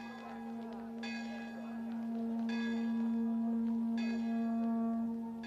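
A bell tolling slowly: three strokes about a second and a half apart, each ringing on, over a steady low held note.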